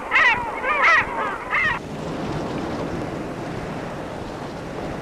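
Gulls calling: three loud, arching cries in the first two seconds, followed by a steady wash of sea surf and wind.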